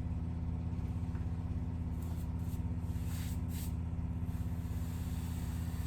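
Washing machine running, a steady low mechanical hum with a fast, even pulsing. A few faint swishes of a paint roller on the wall come in the middle.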